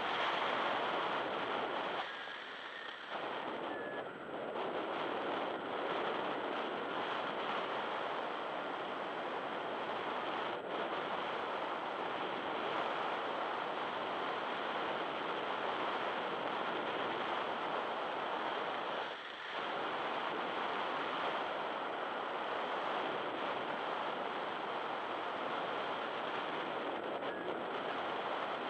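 Steady rushing wind noise on the microphone, with no pitch or rhythm; it drops away briefly about two seconds in and again about nineteen seconds in.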